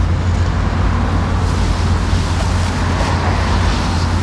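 A loud, steady low rumble with an even hiss above it.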